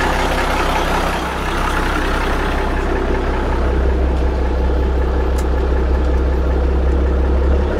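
Caterpillar diesel engine in a Peterbilt 359 idling steadily on its first run after a fresh coolant fill, warming up.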